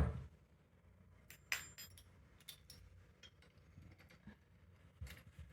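A few light, scattered clinks and taps of small hard parts being handled, balance-bike assembly pieces knocking together; the sharpest is about a second and a half in.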